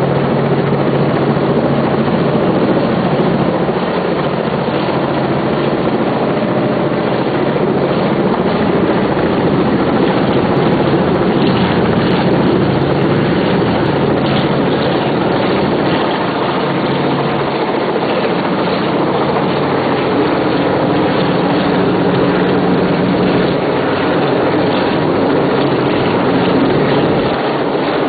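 Helicopter running steadily and loud while working a condenser lift, its rotor and engine drone holding a constant pitch.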